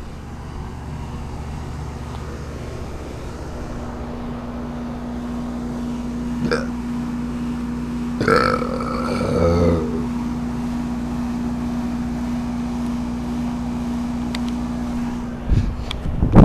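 Goodman heat pump running in heating mode in freezing weather: a steady hum with a held tone that slowly grows louder, broken by a short warbling gurgle about eight seconds in. Loud irregular knocks start just before the end.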